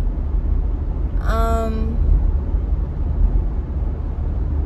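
Steady low rumble of a moving vehicle heard from inside the cabin. About a second in, a single brief pitched tone sounds for under a second.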